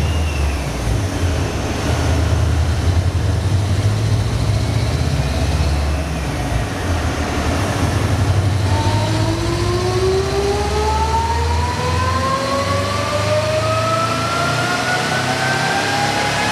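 Supercharged Subaru Legacy flat-four engine running under load on a chassis dyno, with an Eaton M62 supercharger. It is a deep, uneven rumble at first, then from about nine seconds in a whine rises steadily in pitch as the revs climb through the pull.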